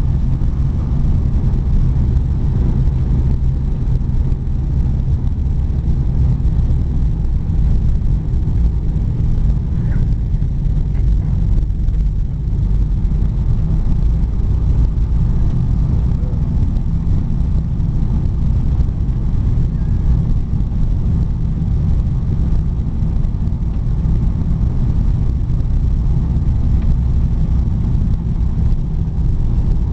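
A 1947 Bombardier snowmobile running steadily under way, heard from inside its cabin as a loud, even, low drone.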